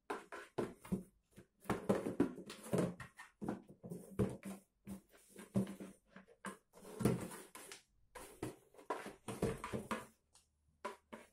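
A small cardboard box being batted and shoved across a laminate floor by a cat's paws: a busy, irregular run of taps, scrapes and knocks that thins to a few scattered ticks near the end.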